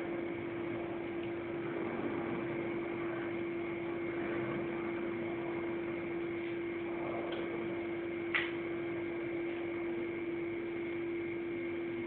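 A steady hum holding one constant tone over a background hiss, with a single sharp click about eight seconds in.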